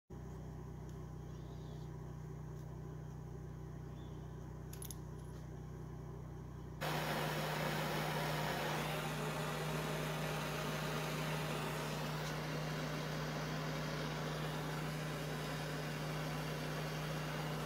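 Twin-cylinder air compressor running steadily during its break-in, with a strong low hum. About seven seconds in, the sound jumps suddenly louder and hissier and stays that way.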